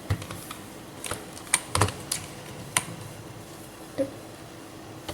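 Typing on a computer keyboard: scattered single keystrokes at an uneven pace.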